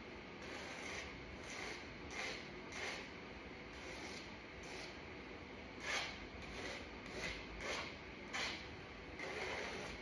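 A thin paintbrush scraping across a primed canvas in short strokes, about a dozen at an uneven pace.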